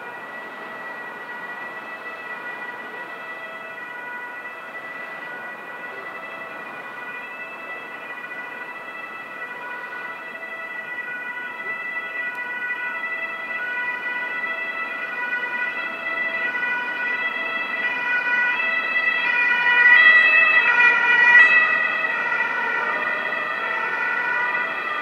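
Two-tone siren of an emergency vehicle, its two pitches alternating about once a second, growing louder as it approaches, loudest about twenty seconds in, then easing off slightly.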